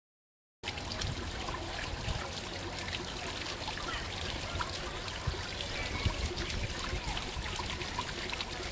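Water trickling and splashing in a flowing stream, starting abruptly just under a second in.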